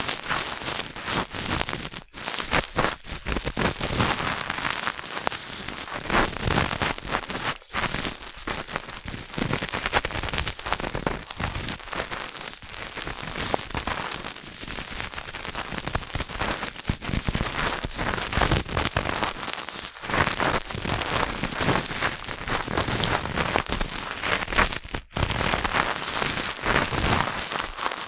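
Cotton swab rubbing and scratching inside the ear of a binaural dummy-head microphone: a close, dense crackling with a few brief breaks.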